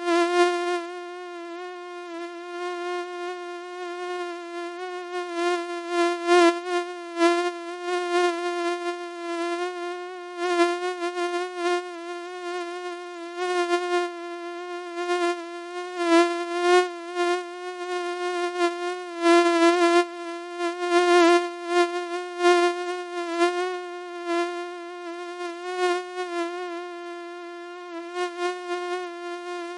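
Mosquito wing whine: a continuous high buzz that wavers slightly in pitch and swells louder in frequent short surges, as if the insect is flying close past the ear.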